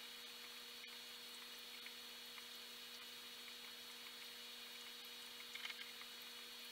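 Faint, steady electrical hum from the running aquarium equipment over a low hiss, with a few soft ticks about five and a half seconds in.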